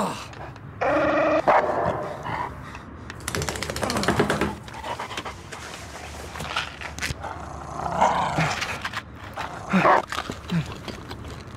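A man gagging and groaning amid dog panting, then a dog barking near the end.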